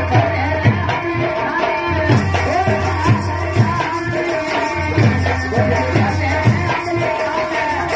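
Live nautanki folk-theatre music: hand drums keep a steady beat under a wavering melody line.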